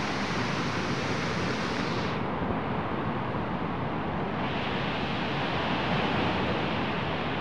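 Steady rushing roar of a muddy river in full flood. The high hiss drops away for about two seconds midway, then returns.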